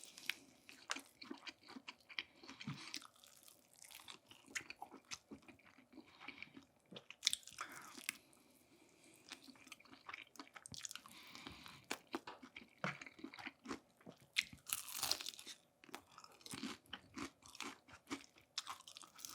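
A person biting and chewing crispy fried chicken, with irregular crunches and chewing sounds throughout.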